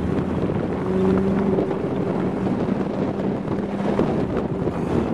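Old Chevrolet truck's inline-six engine running as it drives, its note rising a little about a second in, with wind buffeting the microphone.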